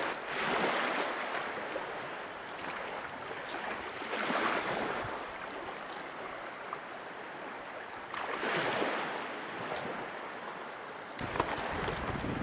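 Small waves washing in shallow water, swelling and fading about every four seconds. Near the end, wind starts buffeting the microphone.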